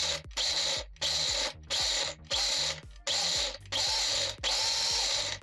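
Electric mixer grinder run in pulse mode: about eight short bursts of roughly half a second each, with brief pauses between them, the last one a little longer. It is chopping green chutney ingredients (coriander, yogurt, peanuts) with ice cubes in the jar.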